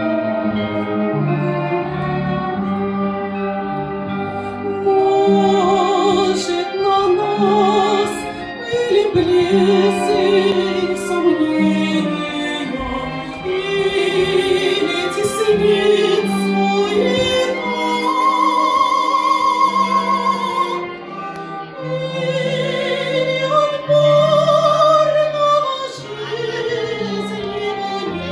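A woman singing a Russian sacred song in a classical, operatic voice with wide vibrato, over an accompaniment of low sustained notes.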